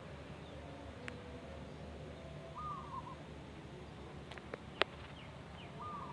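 Faint cooing of a wild zebra dove (perkutut), a short phrase about two and a half seconds in and again near the end; the uploader calls its voice the big 'bedah karang' type. A few sharp clicks sound around four and a half seconds in.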